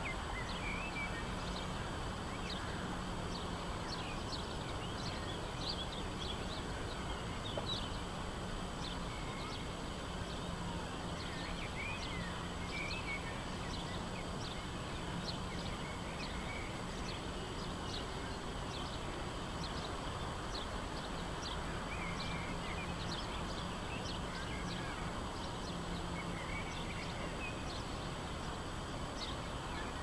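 Outdoor town ambience: a steady wash of background noise with many short, high bird chirps and a few warbling calls scattered throughout, and a low distant hum that comes and goes.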